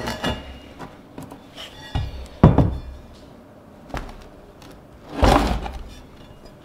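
Knocks and thunks of bandsaw parts being handled and fitted together on a workbench: several sharp knocks, the loudest about two and a half seconds in, and a longer scrape a little after five seconds.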